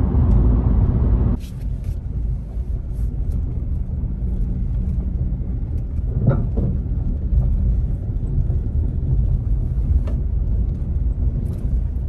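Car cabin road noise: loud tyre rumble on asphalt, which cuts off abruptly about a second in. A quieter low rumble follows as the car rolls slowly over a freshly laid, not yet packed gravel road, with scattered crackles of stones under the tyres.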